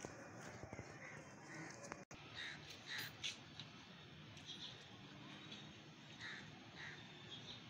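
Crows cawing faintly in the background, short single calls repeated every second or so, over a low outdoor hiss, with a brief dropout about two seconds in.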